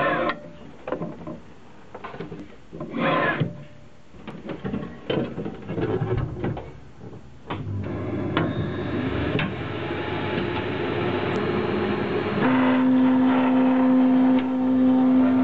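Scattered clicks and rustles, then from about halfway in the stepper motors of a homemade CNC machine driving it at high feed speed, noisy and shaky. Near the end the motors settle into a steady whine.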